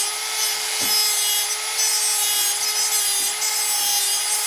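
A small hand-held power tool, likely a rotary tool, running at a steady pitch while it cuts model railroad track, with a scratchy hiss from the cutting and a few light knocks.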